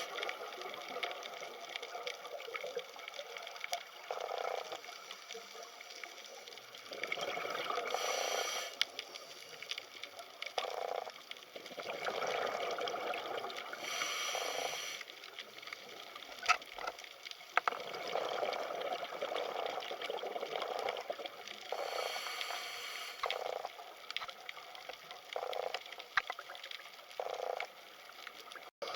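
Water heard underwater: steady bubbling and trickling that swells and fades every second or two, with scattered sharp clicks.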